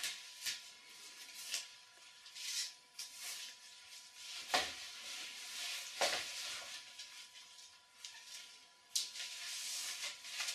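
Bondage rope being pulled and slid loose as the leg ties are undone: a series of short rubbing swishes, a second or more apart.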